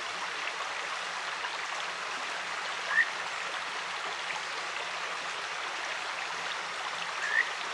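A clear stream running steadily, with a kajika frog (Buergeria buergeri) giving a short rising call twice, about four seconds apart.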